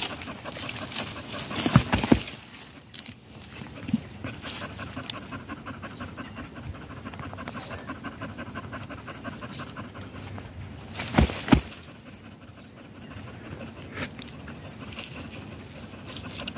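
Hunting dog panting steadily after running its quarry to ground in a hole. A few sharp knocks or snaps of brush cut in, the loudest just after the middle.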